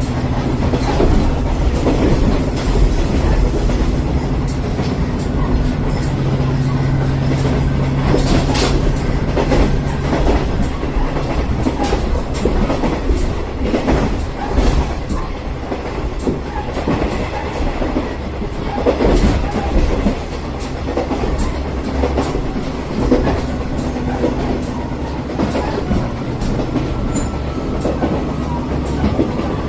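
Interior of a Matsuura Railway diesel railcar running at speed: the engine hums steadily under the continuous rumble of the wheels, with irregular clicks and clatter over the rail joints.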